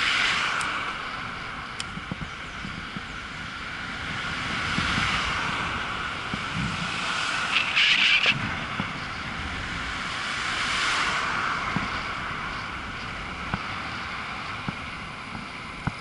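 Wind noise on the microphone of a camera riding an e-bike through town traffic. A rushing hiss swells and fades several times as cars pass, with a brief louder burst about halfway and a few sharp clicks from bumps.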